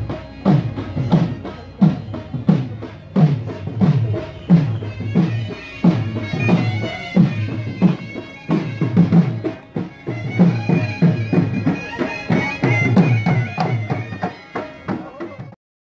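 Traditional music: a drum beaten in a steady rhythm under a reedy wind instrument playing a held melody, cutting off suddenly near the end.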